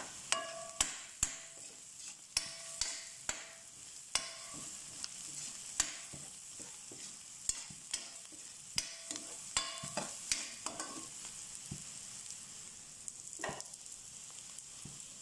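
Metal ladle stirring chopped onion and garlic in a stainless steel wok: irregular clanks of the ladle against the pan, many ringing briefly, over a steady sizzle of frying.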